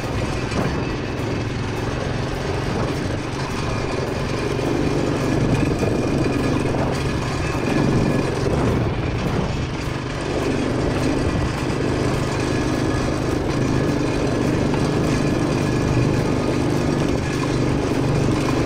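Quad bike engine running steadily while being ridden at an even speed.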